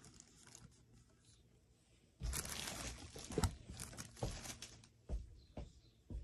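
Off-camera handling noise: about a second of rustling and crinkling, then several separate knocks and taps.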